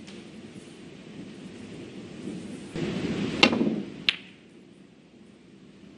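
Snooker balls clicking: two short, sharp clicks of ball contact a little past halfway, about two-thirds of a second apart, over a low hall murmur.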